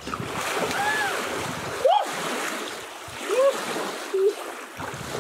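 Water splashing in the wind, with several short rising-and-falling yelps; the sharpest comes about two seconds in.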